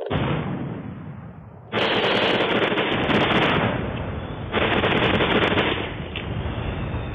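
Battle sound effects of rapid gunfire. The shooting comes in loud surges that start suddenly, at the start, a little under two seconds in and about four and a half seconds in, each dying away, with sharp crackling shots over a low rumble.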